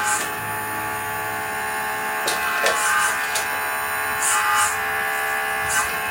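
Background music with steady held tones and a few short, crisp high percussive hits.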